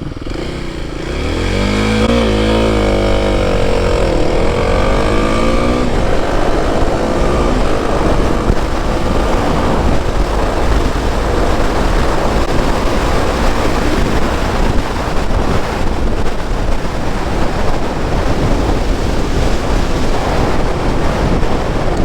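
2021 Kawasaki KLX300 dual-sport's single-cylinder four-stroke engine accelerating hard from a standstill: the revs climb and drop with each upshift over the first six seconds or so, then rise more slowly as speed builds. Wind rushing over the helmet mic grows until it swamps the engine.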